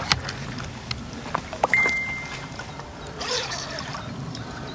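Lake water splashing and sloshing as a wet carp sling holding a fish is lowered into the shallows and moved about. There are a few sharp knocks, and a short high steady tone about two seconds in.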